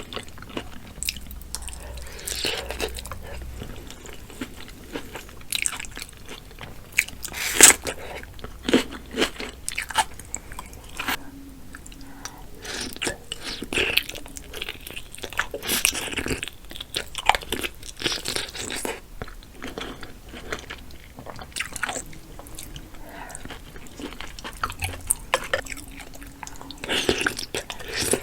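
Close-miked eating sounds of a seafood boil with mussels in spicy sauce: wet chewing and biting with irregular sharp clicks and smacks, the loudest about seven and a half seconds in.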